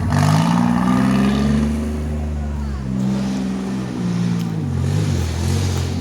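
Off-road vehicle engine revving under load, its pitch climbing sharply at the start, holding, then dropping and picking up again twice.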